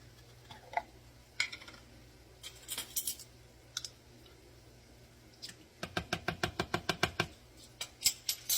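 Light clicks and scrapes of a spoon against a jar and bowl as minced garlic is spooned into the sauce. About six seconds in comes a quick, even run of about a dozen taps, about nine a second.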